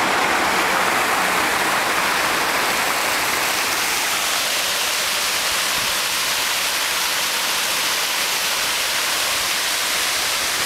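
Fountain jets spraying and splashing down into the pool, a steady even noise of falling water.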